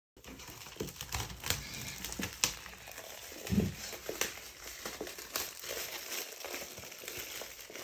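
Retail box packaging being opened by hand: crinkling and tearing with many small clicks, and a soft thump about three and a half seconds in.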